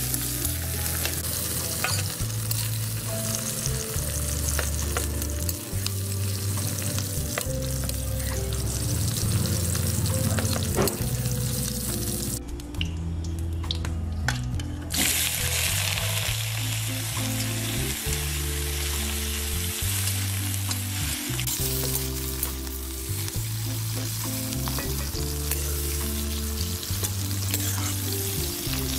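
Onions sizzling in oil in an iron karahi, with the clicks and scrapes of a steel ladle stirring them. The sizzle breaks off about halfway, then comes back louder and brighter as sliced green capsicum goes into the hot oil and is fried.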